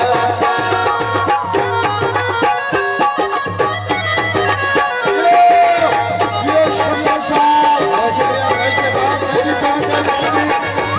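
Live South Asian folk music played instrumentally: a harmonium melody over tabla drumming with a steady beat.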